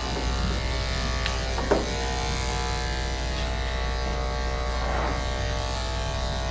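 Electric dog grooming clippers running with a steady hum, with a brief sharp sound about two seconds in.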